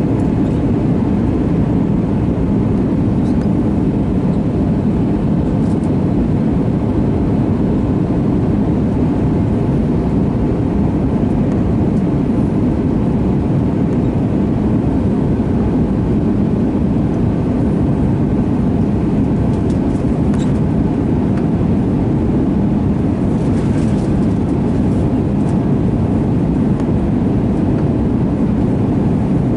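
Steady cabin noise inside an Airbus A320 airliner descending on approach: the jet engines and the airflow over the fuselage make a low, even rush. A few faint ticks come in the last third.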